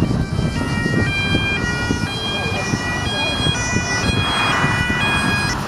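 Sirens of police escort motorcycles: several tones overlapping and switching pitch every fraction of a second, over a low rumble of engines and wind.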